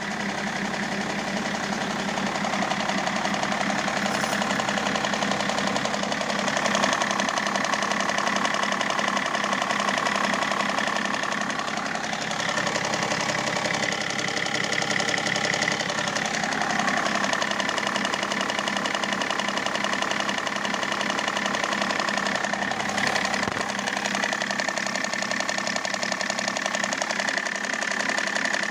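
BMW M57 straight-six diesel engine running steadily with a knock.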